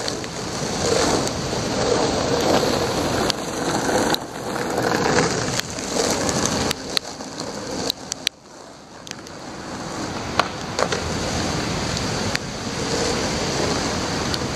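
Steady rain and wind noise over a wet street, with scattered sharp clicks; the noise drops away briefly about eight seconds in, then builds back up.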